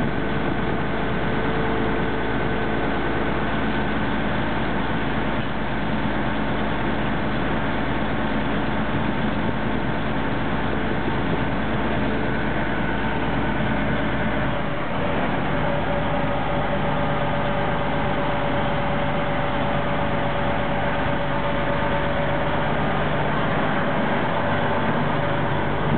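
River express boat's engine running steadily, heard on board, with water rushing along the hull. The engine note shifts about fifteen seconds in.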